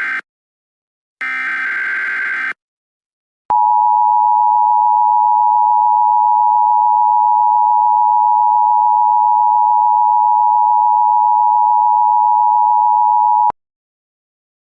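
Emergency Alert System tones. A burst of the alert's buzzing digital header data ends, then one more burst plays, and then the two-tone EAS attention signal sounds, a steady loud dual tone that holds for about ten seconds and cuts off abruptly.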